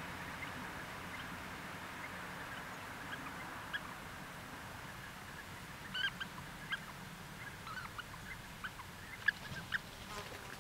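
European bee-eaters giving short, repeated calls, sparse at first and coming thicker from about six seconds in, over a steady low background rumble.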